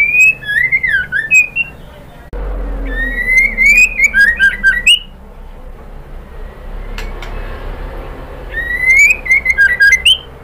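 White-rumped shama (murai batu) singing. It gives three loud phrases a few seconds apart, each opening with a rising whistle and breaking into quick fluting notes and sharp ticks.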